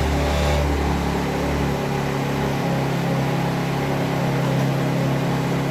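Small 50 cc scooter engine running steadily.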